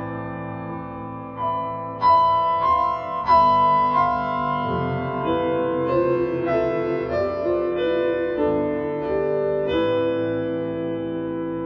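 Background piano music: single notes struck over held chords, with a few clear new notes about two to three seconds in.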